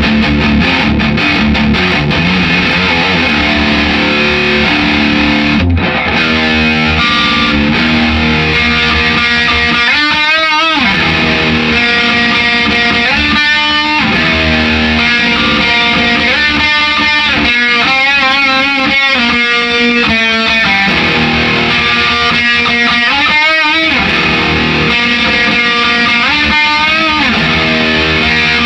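Gibson Les Paul electric guitar played with distortion through an amp head into its speaker cabinet: metal-style riffs and lead lines, with vibrato on held notes several times. The head is connected to the cab with old instrument patch cables instead of speaker cables.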